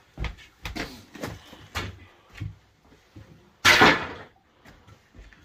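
Knocks and clatters of building work, with one loud bang a little under four seconds in.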